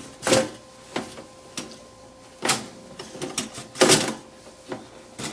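Metal clanks and rattles from a pop-up toaster as a phone stuck in its slot is worked loose, about seven or eight sharp, uneven knocks.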